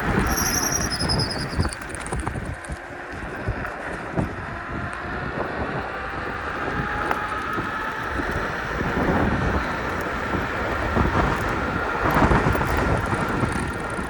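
Wind buffeting the microphone over road and tyre noise while riding a KuKirin G2 electric scooter, with a faint motor whine that rises and falls.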